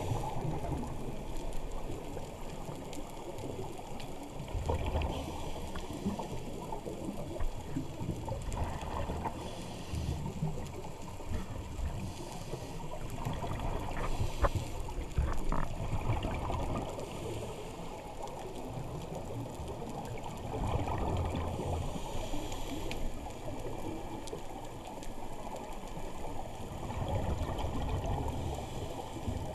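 Underwater ambience dominated by a scuba diver's regulator exhaust bubbles, a low bubbling rumble that swells every few seconds with each exhalation.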